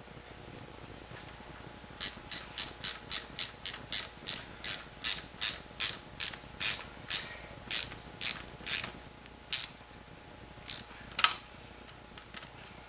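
Hand ratchet clicking while a T-bolt hose clamp is tightened on a fuel pump's outlet hose: a run of sharp clicks, about three a second for some seven seconds, then a few spaced single clicks.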